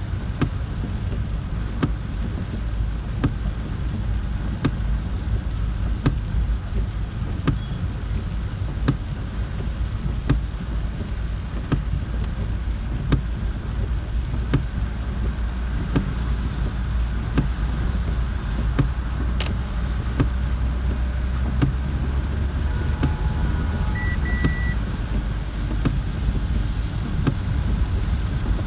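Inside a car driving in heavy rain: steady low rumble of the engine and tyres on the wet road, with rain on the windscreen and regular ticks from the wipers about every second and a half.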